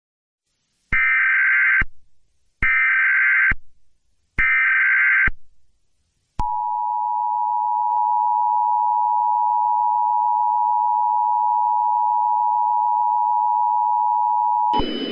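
Emergency Alert System tones. First come three short bursts of warbling digital data tones, the SAME header that encodes the alert, about a second apart. Then comes the steady two-tone attention signal (853 and 960 Hz), held for about eight seconds, which cuts to a burst of hiss just before the end.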